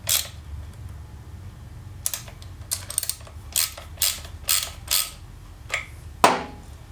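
Hand tools working a motorcycle primary chain adjuster: a run of short ratcheting clicks and metallic clacks, about two a second, with one louder clack near the end, as the adjuster shoe is loosened and dropped one tooth to slacken the chain.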